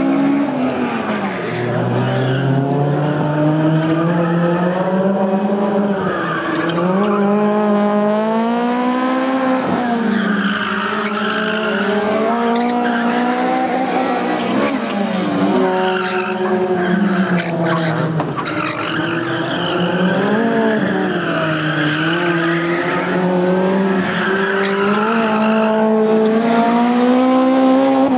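Front-wheel-drive race car engines revving hard and dropping back again and again as the cars work through a tight cone course, with tyres squealing.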